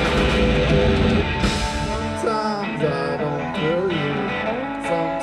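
Live rock band with loud distorted electric guitar and heavy bass. About two seconds in the low end drops away, and a voice singing comes in over the guitar.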